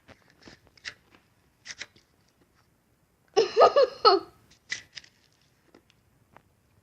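Spoon scraping and crunching through shaved ice as it is eaten, in short scattered clicks and crunches. About three and a half seconds in, a brief wordless burst of voice, the loudest sound.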